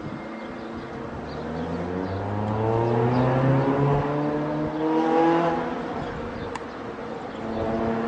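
A motor vehicle's engine running close by, its pitch rising slowly as it accelerates, loudest around the middle.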